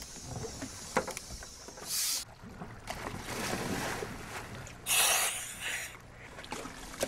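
Scuba divers in dry suits entering the sea from a dive boat: water splashing, loudest about five seconds in, over wind and water noise.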